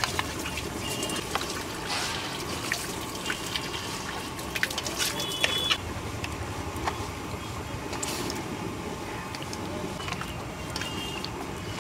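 Hands mixing and rubbing salt and turmeric into raw rohu fish pieces in a steel bowl: wet squelching and slapping of fish, with many small clicks and clinks against the bowl.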